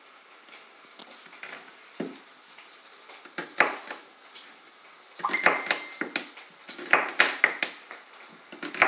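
Kitchen knife cutting an onion directly on a bare countertop, with no cutting board: sharp knocks of the blade striking the counter, a few at first and then in quick clusters through the second half.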